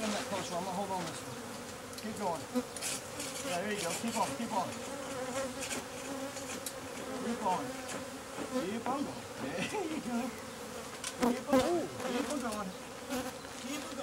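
A swarm of Africanized ("killer") honey bees buzzing thickly, with single bees whining past close by in short rising and falling pitches over a steady hum. Scattered sharp clicks and knocks, loudest a little before the end.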